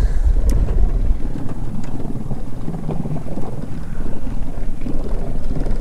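Wind buffeting the microphone over water churning and washing along the side of a jon boat. The heavy low rumble of the wind eases about a second in.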